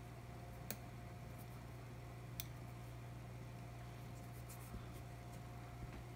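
Light handling on a workbench: two small clicks, about a second in and near the middle, over a low steady electrical hum and a faint steady tone.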